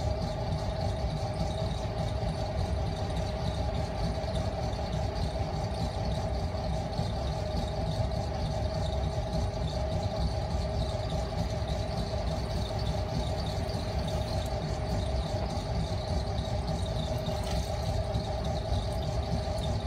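Potter's wheel motor running at steady speed: a constant low hum with a steady whine over it.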